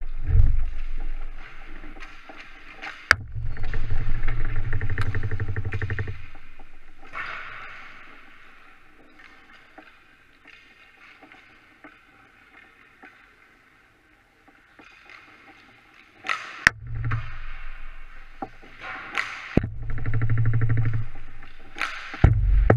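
Ice hockey skates scraping and swishing on the ice, with sharp cracks of hockey sticks hitting the puck about four times. Low rumbling bursts come and go, loudest near the start and in the last seconds, and it is quieter in the middle.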